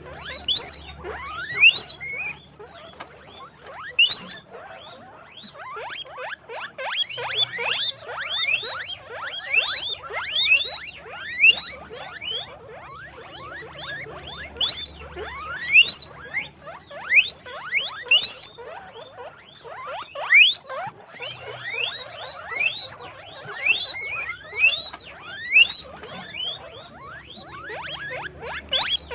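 A group of guinea pigs squeaking: many short, overlapping squeals, each sweeping sharply up in pitch and dropping away, coming in quick irregular clusters.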